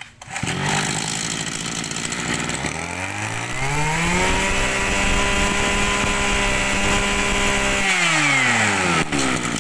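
Mitsubishi TL261 two-stroke brush-cutter engine running: it idles, is revved up to high speed about three seconds in, held there for several seconds, then drops back to idle near the end.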